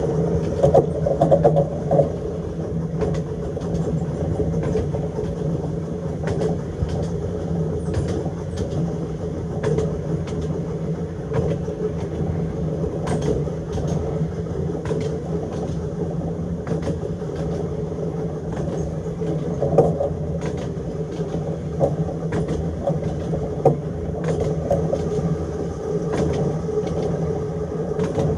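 Seaton Tramway Car 2, a narrow-gauge electric tram, running steadily along the track: a constant hum and rumble of motors and wheels on the rails, with scattered sharp clicks now and then.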